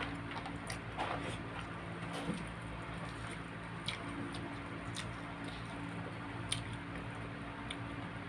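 Close-up eating sounds: wet chewing and squishing as roast chicken is torn apart by hand and eaten, with a few short sharp clicks. A steady low hum runs underneath.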